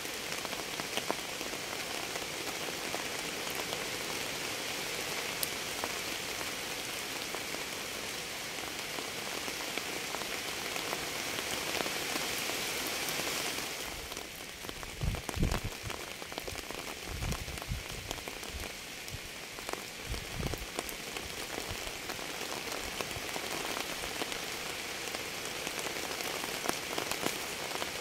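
Steady rain falling on a surface, an even hiss with scattered drop ticks. Just past the middle the hiss eases slightly, and a few low thuds come and go over several seconds.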